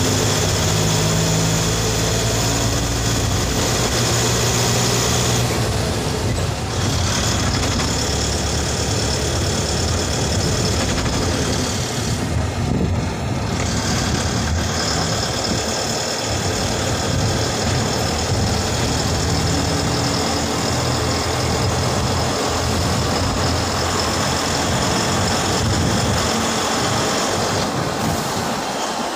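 Engine of a heavy road vehicle running on the move, with tyre and road rumble, heard from inside its cab. A steady engine hum gives way to a rougher, noisier rumble about five seconds in.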